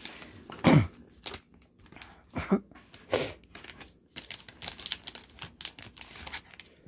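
Clear plastic cake wrapping and a paperboard box being handled, crinkling and rustling in irregular bursts, the loudest a little under a second in, then a run of small crackles near the end.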